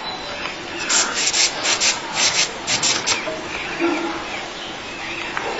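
Short spurts of air hissing out of a bicycle tyre valve, several a second in uneven runs, as a small green parrot works the valve.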